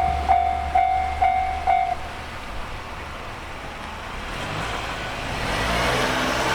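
Japanese railway level-crossing alarm ringing its 'kan-kan' warning, about two strikes a second, then falling silent about two seconds in as the crossing clears. A road vehicle's sound builds near the end.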